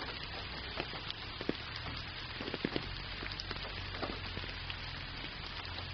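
Steady rainfall: a constant hiss with many single drops ticking at random through it.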